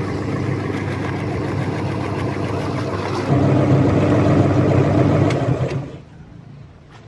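Motorized meat grinder running steadily while grinding a whole orange into pulp. It gets louder about three seconds in, then drops off sharply near the end.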